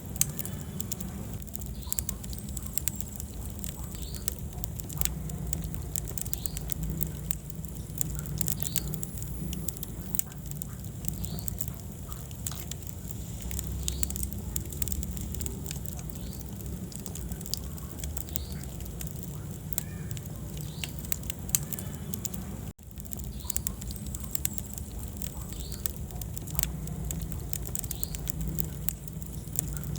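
Wood fire in a fireplace crackling and popping over a steady low rumble of flame. The sound cuts out for a split second about two-thirds of the way through.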